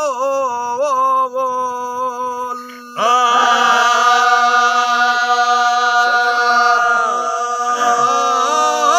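Unaccompanied male singing of a Sindhi raag kafi in the raagy faqeer style. A wavering, ornamented melodic line sounds over a steady low drone, then from about three seconds in one long high note is held to near the end.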